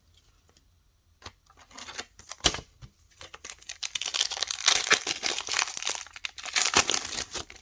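A trading card pack's wrapper being torn open and crinkled: a few sharp crackles at first, then a dense stretch of crinkling for most of the rest.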